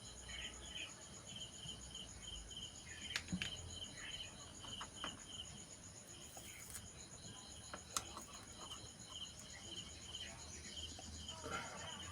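Cricket chirping steadily in rapid, evenly spaced pulses, with a few sharp clicks and small clatter from work on the bench, the loudest click about eight seconds in.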